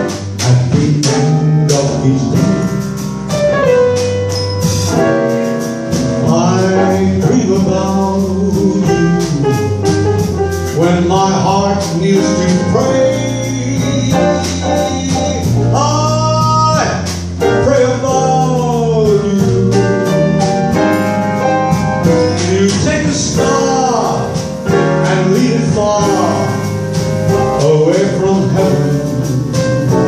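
Small live band of piano, plucked upright double bass and drums playing a bolero, with a male singer singing into a microphone over it.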